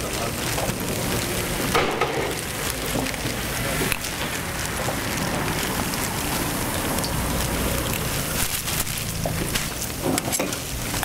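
Hotteok frying in oil on a flat griddle: a steady sizzle, with a few scattered clicks.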